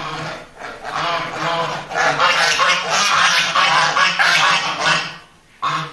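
A flock of farm waterfowl calling, many voices overlapping into a loud clamour that builds about two seconds in and breaks off near the end, with one short call after it.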